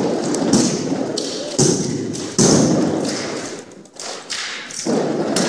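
Armed drill: drill rifles and boots striking a wooden gym floor in unison, a handful of sharp thuds, the loudest about two and a half seconds in, each echoing on in the big gym.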